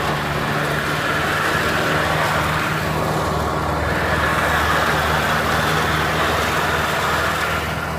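Riding lawnmower engine running steadily under load while mowing: a loud, even drone with a constant hiss on top.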